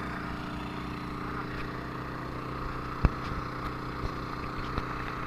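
Engine running steadily, a low even hum with a regular pulse. A single sharp click or knock sounds about three seconds in, with a few fainter ticks after it.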